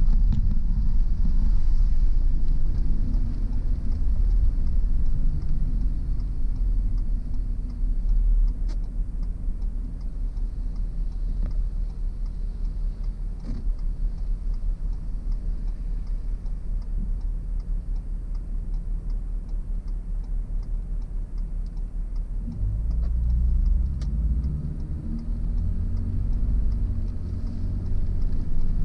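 Car driving along a road: a steady low rumble of engine and tyres, with a faint rapid ticking. About three-quarters of the way through, the engine note climbs as the car speeds up.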